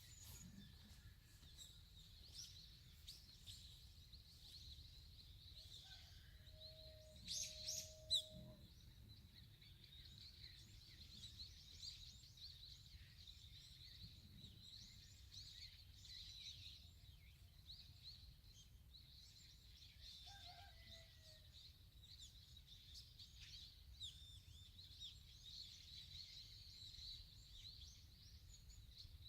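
Faint countryside ambience of many small birds chirping and twittering without pause, a steady high-pitched chorus. A louder short call, then a sharp click about eight seconds in.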